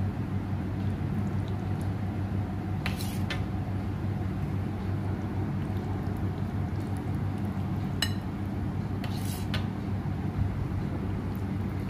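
Kitchenware clinking a few times over a steady low hum: twice about three seconds in, once at about eight seconds and once more shortly after.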